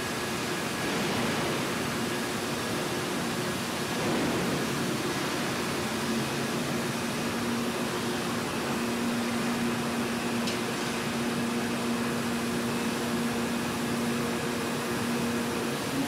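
Steady hiss and hum of running bottle-forming machinery, with a low steady hum growing stronger about six seconds in.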